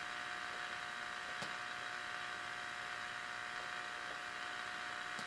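Steady hiss with a faint steady whistle-like tone from the speaker of a freshly repaired 1955 Zenith K526W tube AM radio, powered up with no station coming through; a tiny click about a second and a half in.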